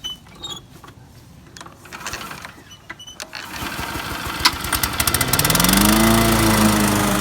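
Kawasaki 179cc single-cylinder engine on a Toro commercial walk-behind lawn mower starting up after a few small clicks, its pitch rising quickly over about a second to a steady running speed.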